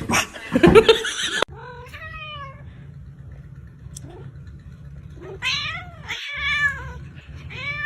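Domestic cat meowing four times in long, drawn-out calls that rise and fall in pitch. The calls follow a loud scuffling noise that stops abruptly about a second and a half in.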